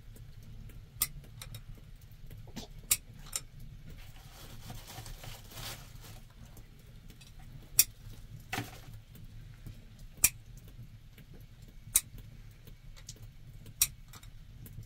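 Wood fire crackling in an open hearth, with sharp pops every second or two over a low steady hum.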